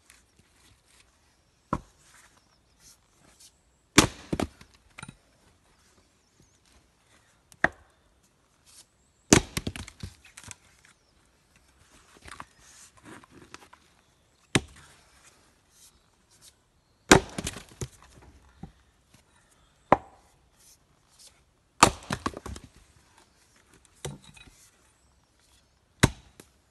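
Bison 1879 hand-forged splitting axe (2.2 kg head) splitting logs on a chopping block: about nine sharp blows a few seconds apart, several followed by a short clatter of wood, with quieter knocks between as rounds are set up.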